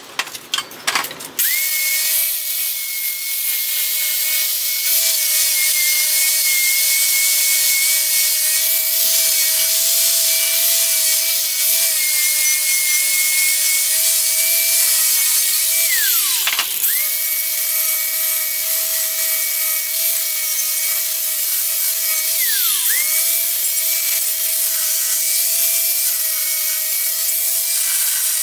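A few metal clinks, then about a second and a half in a DeWalt angle grinder starts up and grinds steadily at the welds on a steel bumper, with a high steady whine. Twice it winds down sharply in pitch and quickly spins back up, about halfway through and again later.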